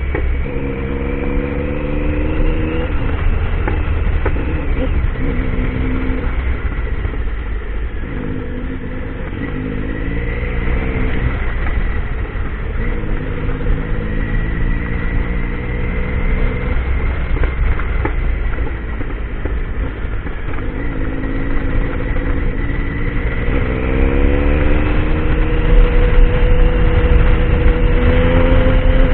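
Triumph Tiger motorcycle engine running under way off-road, its pitch climbing and dropping again and again as the rider accelerates and shifts, over a steady low rumble. It revs up longest and loudest near the end.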